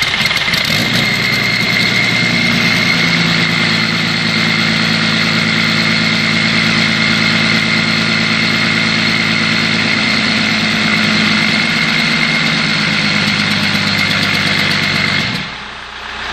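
Audi A6 engine running at idle on the stand-open front end, a steady engine hum with a high whine over it. About fifteen seconds in the sound drops abruptly, then carries on more quietly.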